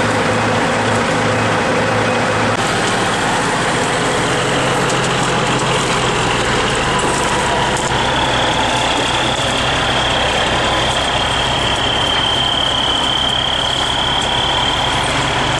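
Log truck's diesel engine running steadily, with a faint high steady whine coming in about halfway through.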